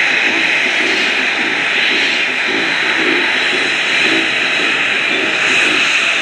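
Twin Beech 18's two radial piston engines at takeoff power as it rolls and lifts off, a steady loud drone with a low throb pulsing about twice a second.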